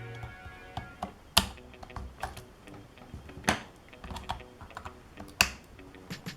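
Small clicks and taps of laptop parts and tools being handled during disassembly. Three sharp clicks stand out, about two seconds apart.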